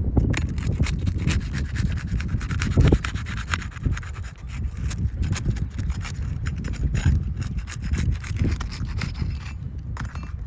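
Scraping and rubbing on 3-tab asphalt roof shingles as they are worked loose or fitted, with many small clicks and knocks.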